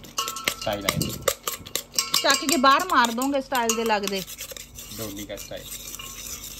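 Spoon clinking and scraping against a bowl as bhel puri is stirred and mixed, in quick irregular clicks. A brief high voice sounds in the middle.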